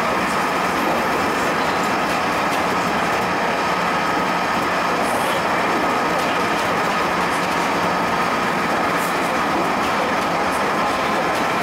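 JR Central 211 series 5000-subseries electric multiple unit running steadily at speed, heard from inside the front car: an even rumble of wheels on rail with a thin steady high tone held throughout.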